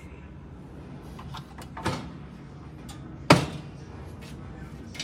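A few sharp clicks and knocks over a steady low hum, with a louder knock about two seconds in and the loudest about three seconds in.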